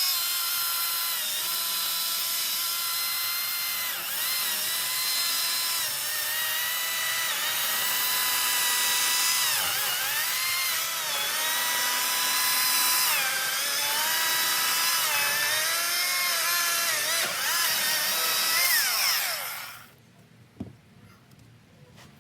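Ryobi 40V brushless cordless chainsaw cutting through a log. Its electric motor whine dips in pitch several times as the chain bogs under load. Near the end the pitch falls and the saw stops.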